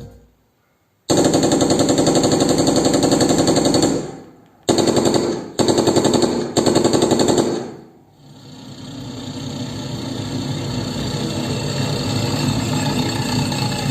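Soundbar playing a surround test soundtrack of rapid automatic gunfire. A long burst starts about a second in, three short bursts follow, and then a rumbling roar swells up.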